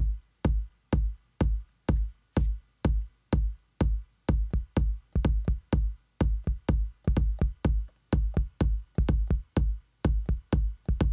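Electronic drum beat looping on a Native Instruments Maschine, with a deep kick about twice a second. Extra drum hits, a tom or pitched-up kick tapped in on the pads, fill in between the kicks and make the pattern busier from about six seconds in.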